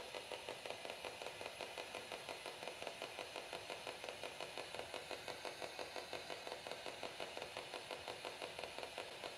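Faint, steady rhythmic pulsing, about six pulses a second, from a small device running.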